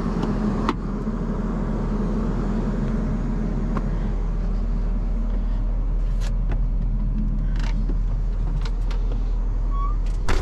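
John Deere 350G excavator's diesel engine idling steadily, with a sharp click of the cab door latch about a second in and a few lighter clicks and knocks later as the operator settles into the cab.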